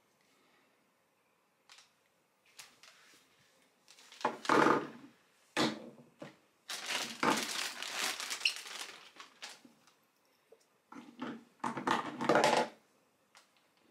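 Clear plastic packaging bags crinkling and rustling as they are handled, in several bursts, with the loudest around the middle and again near the end.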